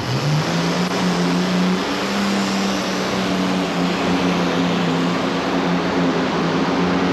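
Modified pulling tractor's engines at full throttle under load during a pull. The pitch climbs over about the first half second, then holds high and steady.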